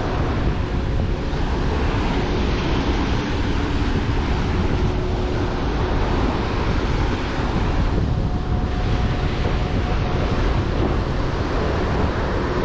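Surf of the Sea of Azov washing onto a sandy beach, with wind buffeting the microphone and rumbling steadily. A faint steady hum sits underneath.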